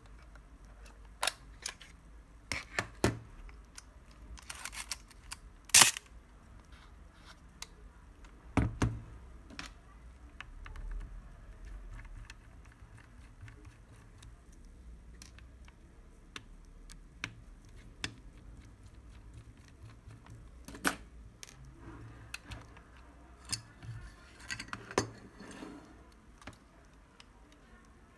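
Scattered sharp clicks and light knocks of a Contarex SLR camera body being taken apart by hand: a small screwdriver working its screws and metal parts being handled and set down, with the sharpest click about six seconds in.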